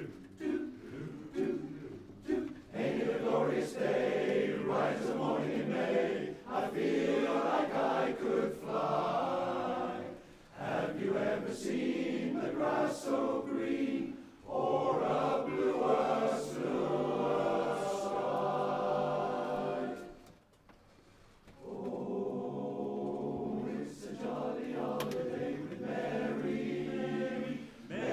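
A 44-voice barbershop chorus singing unaccompanied in close harmony, with a brief break about twenty seconds in before the voices come back in.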